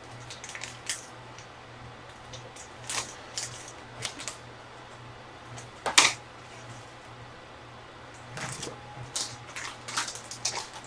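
Scattered light clicks and taps, a few a second at times, with one sharper snap about six seconds in, over a low steady hum.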